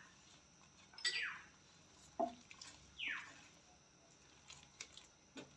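A bird calling: short chirps that fall quickly in pitch, two of them about two seconds apart, with a few faint clicks in between.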